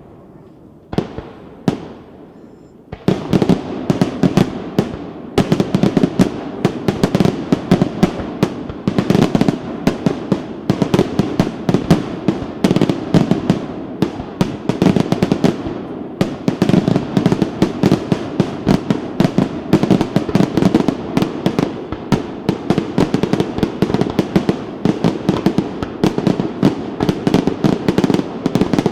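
Fireworks display: a few separate bangs, then from about three seconds in a dense, continuous barrage of rapid explosions, many a second, that keeps going.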